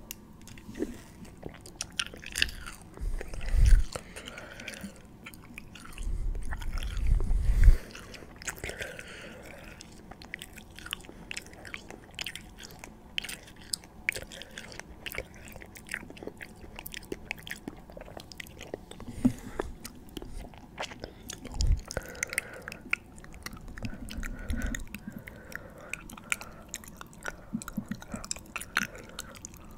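Close-miked ASMR mouth sounds: many quick, wet clicks and smacks from lips and tongue, with a few deeper, louder bumps in the first eight seconds.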